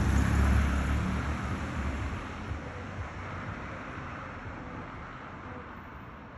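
A car driving past close by and on down the street, its tyre and engine noise loudest about half a second in, then steadily fading as it pulls away.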